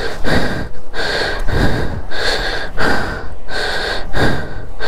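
A person's heavy, rapid breathing, a loud puff about every 0.7 seconds: a rider out of breath just after his motorcycle has fallen over.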